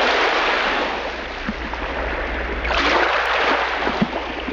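Surf rushing onto a beach, a steady wash of breaking waves that swells about three seconds in.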